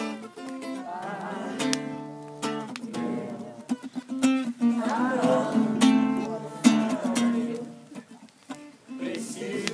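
Acoustic guitar playing a slow worship song, with voices singing along in places.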